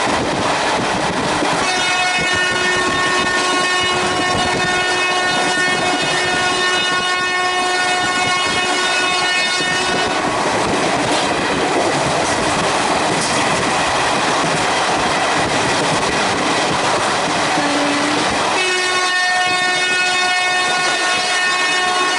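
Electric locomotive's air horn sounding a long steady blast of about eight seconds, then a second blast starting near the end, over the running noise of a fast train on the rails.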